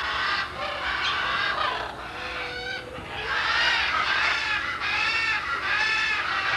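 Parrots squawking: a run of harsh, raspy calls, about one or two a second, loudest near the middle.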